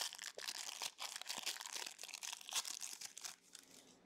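Foil wrapper of a Panini Legacy Football card pack being torn open and crinkled by hand, a dense crackling that stops shortly before the end.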